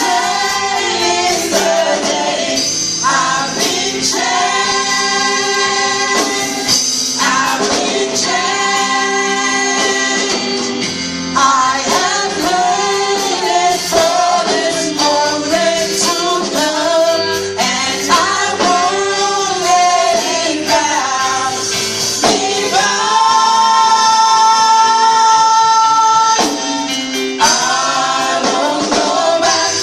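A choir singing a gospel song with instrumental backing and tambourine, in sung phrases with long held notes.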